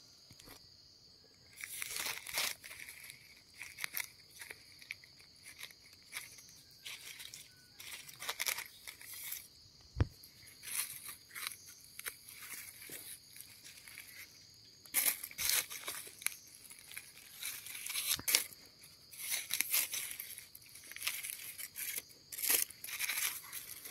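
Dry leaf litter crackling and rustling as hands dig through it to pull termite mushrooms from the soil, in irregular bursts that grow busier in the second half. A knife blade scrapes the ground near the end.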